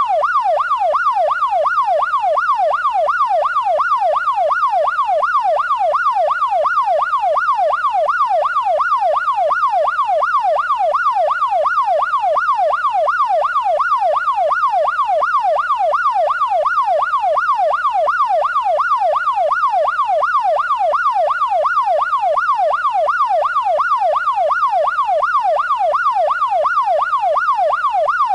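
Police siren in fast yelp mode: an electronic wail sweeping rapidly up and down, about two and a half times a second, at an even level.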